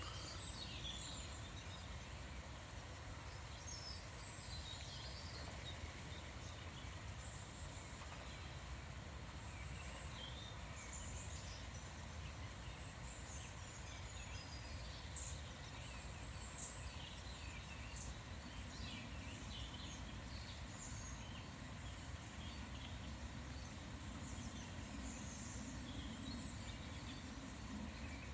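Small birds chirping and singing in short, scattered calls, over a steady low background rumble.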